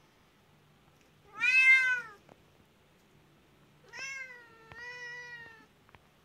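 Cat meowing three times: one loud, arching meow about a second and a half in, then two more back to back near the end, the second one longer and slightly falling.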